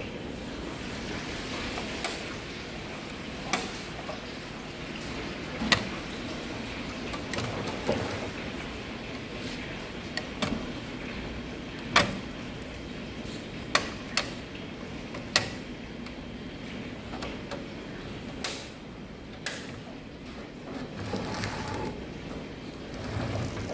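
Sharp plastic clicks and clacks from a Bruder Scania toy livestock truck's hinged tailgate ramp and gates being opened, folded out and shut by hand: about a dozen single clicks spaced a second or two apart over a steady low hiss.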